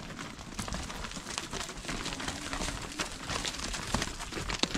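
Cattle hooves clopping and scuffing on dry, stony dirt as several cows walk past, an irregular run of knocks.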